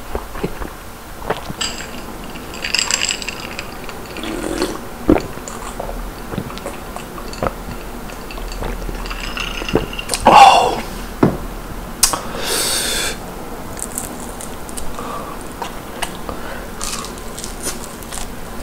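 Close-miked eating of crispy fried chicken: chewing and biting, with scattered crunches and wet mouth clicks. About ten seconds in comes a louder burst of mouth and breath sounds as beer is drunk.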